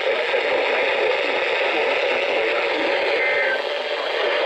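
Steady static hiss from a weather radio receiver, with no voice coming through. About three seconds in there is a brief high tone.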